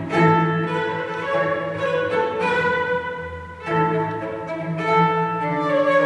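Cello playing long, slow bowed notes rich in overtones, with a new bowed attack a little past halfway.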